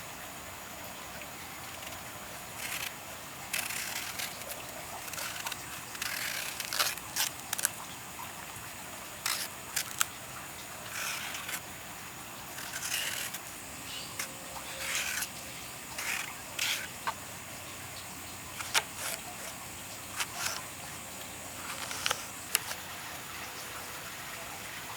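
Knife work on green plantains, peeling and cutting: irregular short scrapes and sharp clicks of the blade, some grouped in quick runs.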